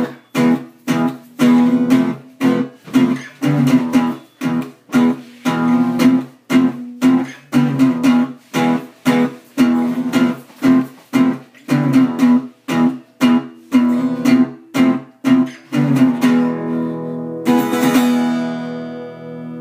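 Acoustic guitar strummed in a steady rhythm, about two strokes a second. The strumming stops about 16 seconds in and the chord is left ringing, then a single strum rings out near the end.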